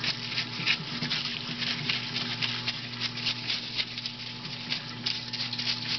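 Stiff brush scrubbing the trigger parts of an AR-15 lower receiver in a parts washer under flowing mineral spirits, in quick, irregular scratchy strokes, over the steady hum of the washer's solvent pump.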